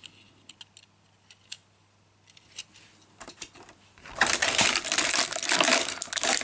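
A few faint clicks of a diecast toy car being handled. From about four seconds in, a loud, dense crackling rattle of a thin plastic blister tray as a 1:64 diecast car is pried out of its well.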